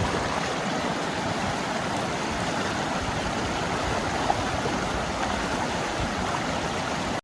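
River water flowing: a steady rushing and burbling of the current.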